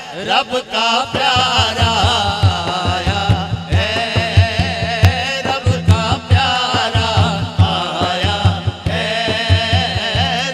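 A man singing a naat, an Urdu devotional poem, in long wavering melismatic lines through a PA microphone, over a steady low rhythmic pulse that enters about a second in.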